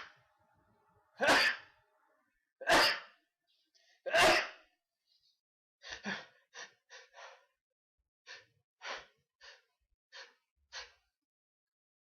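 A person sneezing loudly three times, about a second and a half apart, followed by a run of about ten shorter, quieter bursts every half second or so.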